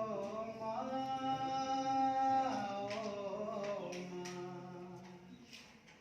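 A man singing solo in long held notes that glide from one pitch to the next; the voice fades out near the end.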